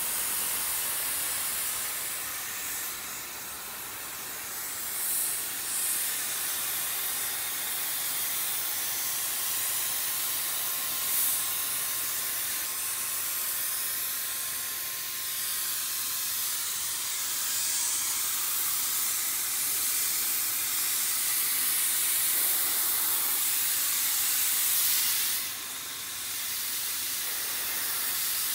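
DYC DipSprayer, an HVLP spray gun fed by a hose, spraying dip coating onto a car: a steady hiss of rushing air and atomised spray. It drops away briefly about three seconds in and again near the end.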